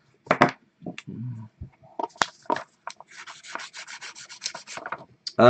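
Marker pen scribbling back and forth on paper, blacking out a line of printed text. A few separate strokes come first, then a quick run of about seven scratchy strokes a second near the end.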